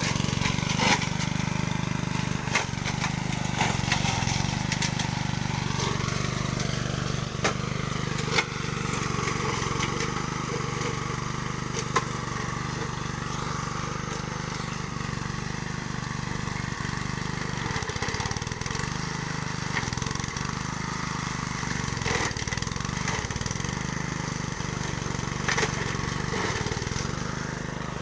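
Honda self-propelled walk-behind lawn mower's small four-stroke engine running steadily, with scattered sharp clicks and knocks over the hum.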